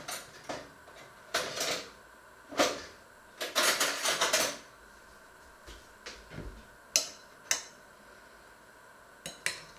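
Dishes and cutlery clattering on a kitchen table: a string of short knocks and clinks, with a longer stretch of rattling about three and a half seconds in. Near the end a metal spoon clinks twice against a china plate.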